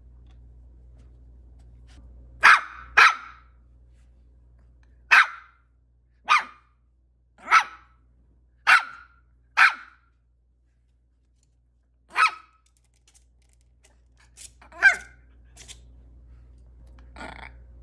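Maltese puppy barking: short, sharp, high-pitched single yaps, about one a second at first, then spaced two to three seconds apart.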